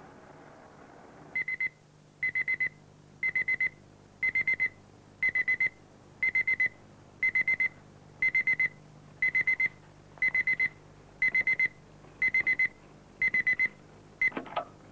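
Electronic alarm beeping in groups of four quick high beeps, about one group a second, stopping abruptly partway through a group near the end with a short knock.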